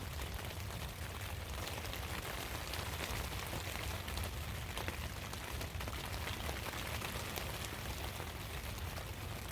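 Steady rain pattering on the roof of a hunting ground blind, a dense run of fine drop ticks.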